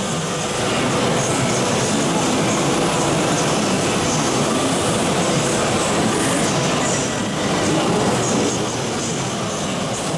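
Aluminium-profile CNC machining center running with its Italian HSD 951 spindle: a steady mechanical noise with a faint whine in it.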